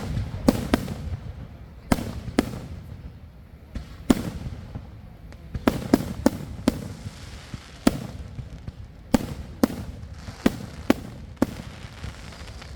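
Consumer fireworks going off in a backyard show: a string of about fifteen sharp booms, irregularly spaced, some in quick pairs and runs a few tenths of a second apart, others a second or more apart.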